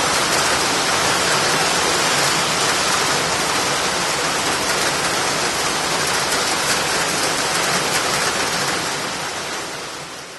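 Heavy rain pouring down, a steady loud hiss that fades out near the end.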